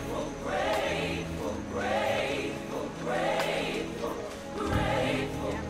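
Choral music: a choir singing over accompaniment, in phrases that swell and fade about every second and a half.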